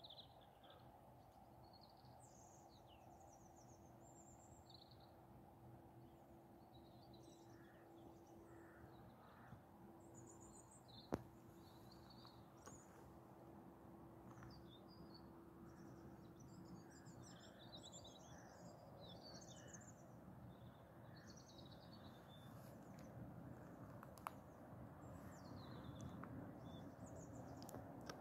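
Faint small birds chirping and twittering on and off over a low, steady background hum. A single sharp click about eleven seconds in, and a smaller one later.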